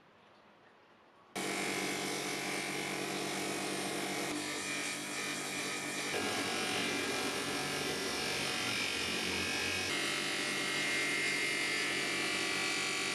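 Bench grinder motor running steadily with its abrasive wheel spinning, a rusty steel wrench held against the wheel to clean it. The whirr starts abruptly about a second in.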